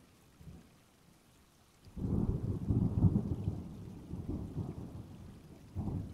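A low rumble of thunder breaks in suddenly about two seconds in and rolls on, slowly fading, with a second, shorter rumble near the end.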